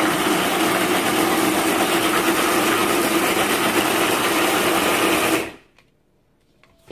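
Electric mixer-grinder (mixie) running at a steady speed, its blades grinding fried okra, onions and spices into a thick chutney in the steel jar. The motor stops about five and a half seconds in.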